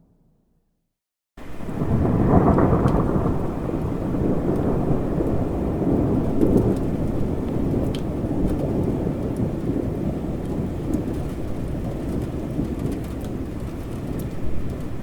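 Heavy rain with rolling thunder, cutting in abruptly after about a second of silence; the thunder rumble is strongest a second or so after it starts and swells again midway.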